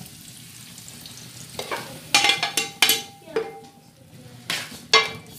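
Metal spoon scraping and clanking against a steel pot as fried egg is stirred into cooked daal, several strikes ringing briefly, over a light steady sizzle.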